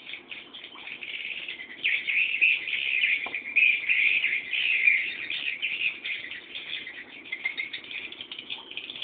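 Swiftlet chicks chirping continuously in a dense, high-pitched chatter, loudest between about two and five seconds in.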